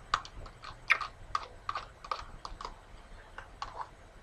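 Close-up eating sounds as yogurt is spooned from a plastic cup with a metal spoon and eaten: a quick, irregular run of sharp clicks, thinning out near the end.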